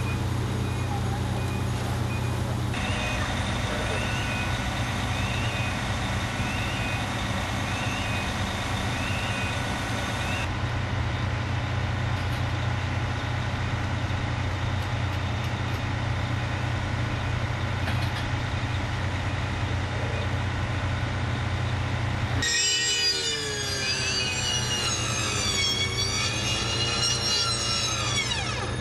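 Fire apparatus diesel engines running steadily at a fire scene, with a truck's reversing beeper sounding over them for the first ten seconds or so. About 23 seconds in, a siren starts wailing, rising and falling in pitch.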